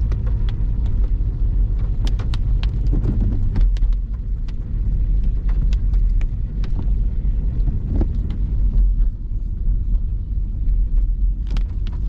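A car on the move, heard from inside: a heavy, steady low rumble of engine and road, with scattered sharp knocks and rattles.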